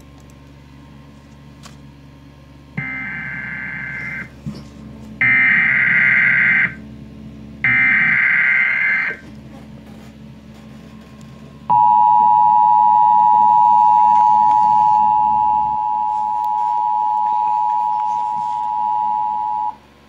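Emergency Alert System tones played from a TV: three short screeching bursts of the digital SAME header, evenly spaced, then the steady two-tone attention signal held for about eight seconds, marking the start of a civil emergency alert.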